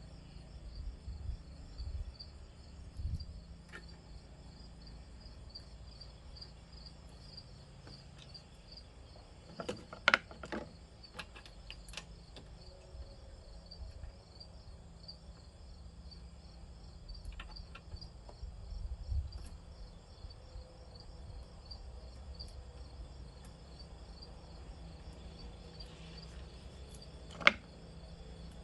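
Crickets chirping steadily in a fast, even pulse, with a few sharp clicks over it, the loudest about a third of the way in and again near the end.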